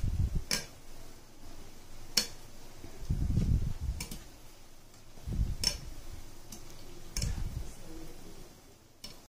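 Light sharp clicks, one about every one and a half seconds, with soft low knocks between them, as pakora batter is dropped by hand into the pan one portion at a time. There is no strong sizzle.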